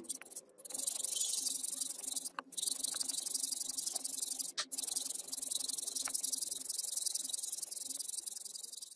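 Hand hacksaw cutting through a metal block held in a bench vise: a steady high rasp of the blade teeth, with a few brief breaks.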